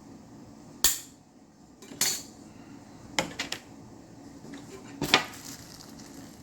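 Hard plastic clacks from a model kit's parts trees being handled and set down: one about a second in, another at two seconds, a quick rattle of three a little after three seconds and a louder double knock near five seconds.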